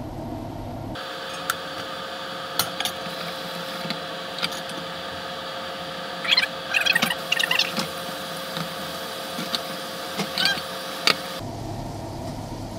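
Fast-forwarded kitchen audio of beef cubes searing in oil in a stainless stockpot: a steady sizzling hiss with a thin steady hum, dotted with quick clinks and brief high chirps. It starts about a second in and cuts off shortly before the end.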